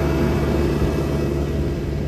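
Horizontal directional drill rig's diesel engine running steadily under load as it pushes and spins its drill rod into the ground: a constant-pitch drone, easing slightly near the end.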